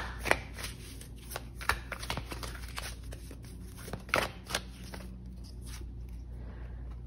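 Tarot cards being shuffled and handled by hand: a run of soft, irregular card flicks and clicks, with a few sharper snaps among them.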